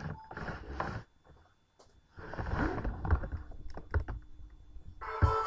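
Irregular clicks and knocks, with a brief lull about a second in, then a music remix starts playing near the end.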